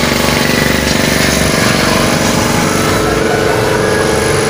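An engine running at a steady speed with a rough, even note, getting a little louder in its upper tone about three seconds in.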